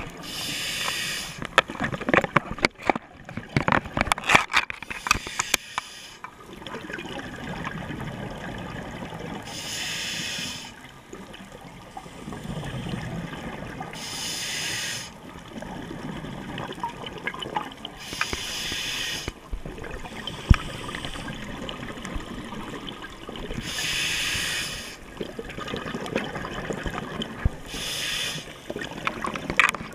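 Scuba diver breathing through a regulator underwater: six hissing bursts of exhaled bubbles a few seconds apart, over a low steady rumble. Sharp clicks and knocks sound in the first few seconds.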